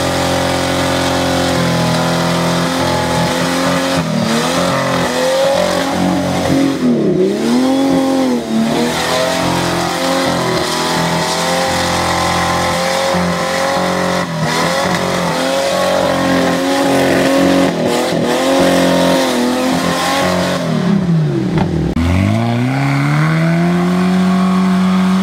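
Off-road 4x4 trial vehicle's engine revving hard and unevenly. The pitch rises and falls again and again, drops low about 22 seconds in, then climbs and holds high near the end.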